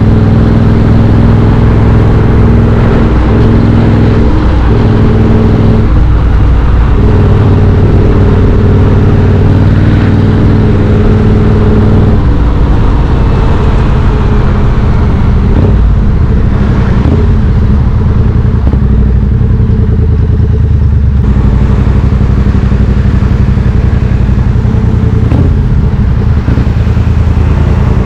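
Triumph Street Twin 900's parallel-twin engine running under way through British Customs slash-cut exhaust tips, picked up by a camera's built-in mic. The note breaks briefly about 4 and 6 seconds in and settles lower and less steady from about 12 seconds in.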